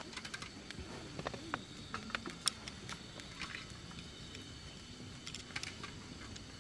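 Scattered light clicks and taps of small objects being handled, over a faint steady high-pitched chirring.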